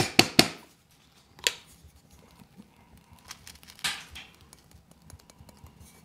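Small metal manual coffee grinder being handled: three sharp clicks in quick succession, then faint scattered ticks, with a louder knock about a second and a half in and another about four seconds in.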